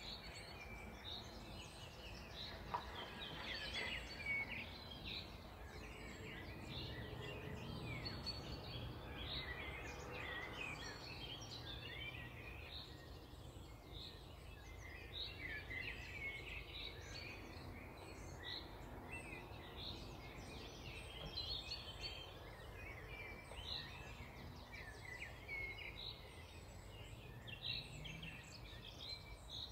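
Many songbirds singing at once in a dawn chorus: a dense, overlapping stream of short chirps and trills, over a faint, steady low rumble.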